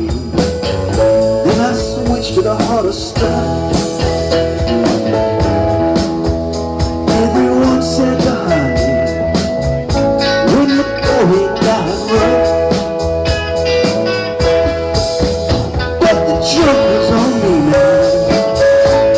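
Live band playing an instrumental break in a blues-rock song: an electric guitar lead with bending notes over bass guitar, drum kit and an electric organ sound from a stage keyboard.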